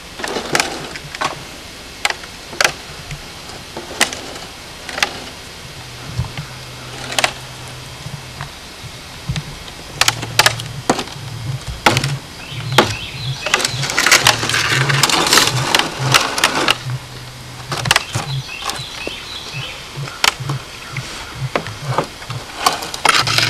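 Red plastic toy wheelbarrow being pushed along a concrete path, its plastic body and wheel knocking and clattering at irregular moments. There is a longer stretch of continuous rolling rattle about halfway through.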